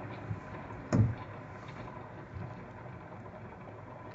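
Steady low hum heard from inside a car cabin, with one sharp thump about a second in.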